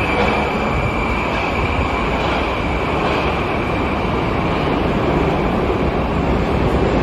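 Moskva-2020 (81-775/776/777) metro train pulling away from the platform: a steady rumbling rush of wheels on rail, with a high steady whine that fades out in the first couple of seconds.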